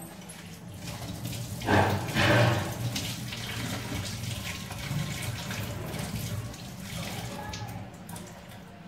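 Water running from a kitchen tap into the sink as a handful of fresh coriander leaves is rinsed under it. The flow is loudest about two seconds in and stops near the end.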